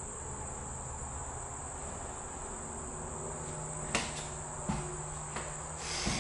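Steady high-pitched insect chorus from the summer vegetation outside. From about four seconds in, a few footsteps knock on the floorboards.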